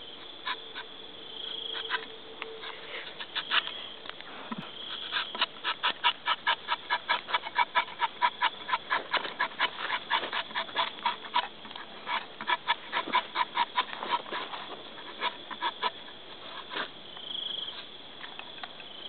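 Night chorus of insects and frogs: a steady high trill, with a fast, even run of short calls at about five a second through the middle.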